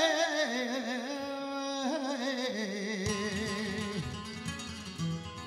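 Flamenco cante: a man holds a long wavering sung note, then steadier notes, over flamenco guitar. The voice falls away about four seconds in and the guitar goes on alone with plucked and strummed notes.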